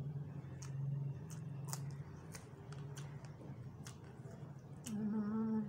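Close-up eating sounds: scattered short clicks and smacks of mouth and fingers as rice is mixed by hand and eaten, over a steady low hum. Near the end a short held voice sound at one steady pitch.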